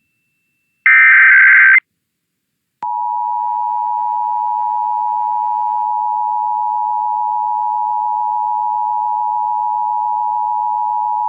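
Emergency Alert System monthly test tones. About a second in comes a short buzzy digital data burst, the SAME header. Then, after a click near three seconds, the steady two-tone EAS attention signal (853 and 960 Hz together) is held for about eight seconds before it cuts off.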